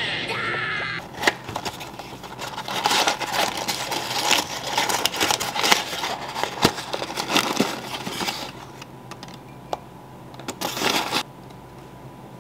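A cardboard box and packaging being handled: several seconds of crinkling and rustling with scattered light clicks and taps. Near the end comes a short scraping rustle as baking soda is spooned into a ceramic bowl.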